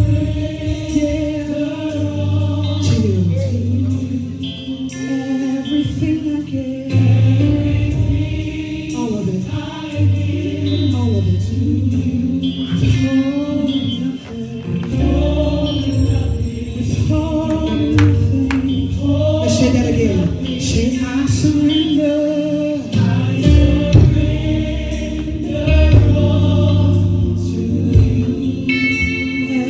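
Gospel choir singing with a live band: steady bass, drums and keyboard under sung melody lines.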